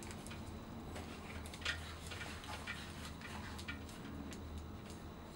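Faint, scattered clicks of a Hot Tools curling iron's spring clamp and handle being worked while a section of hair is wrapped around the barrel.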